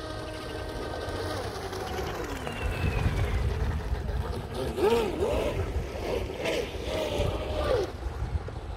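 Radio-controlled model boats running on a pond, their motors whining with a pitch that wavers up and down, over wind rumbling on the microphone.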